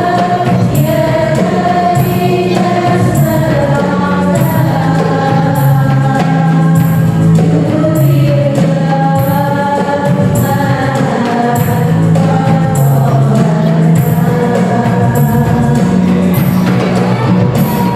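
Sholawat devotional song: voices singing a wavering melody over keyboard accompaniment, with a regular percussion beat.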